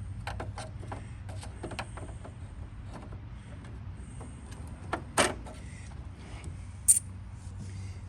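A screwdriver clicking and scraping against the mower's switch housing while prying at the ignition switch's retaining tab, with a louder knock about five seconds in and a sharp click near seven seconds.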